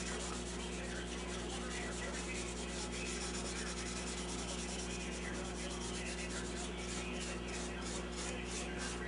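A pad of 0000 steel wool rubbing finish restorer into a lacquered wood radio cabinet top, stroke after stroke. The strokes settle into an even back-and-forth of about three to four a second near the end.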